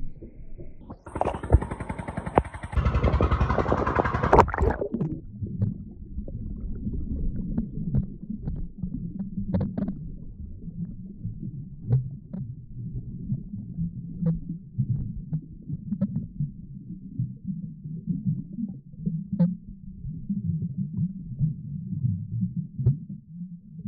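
Muffled water noise picked up by a phone's microphone held underwater: a loud rushing burst for about four seconds near the start, then a low rumble with scattered faint clicks.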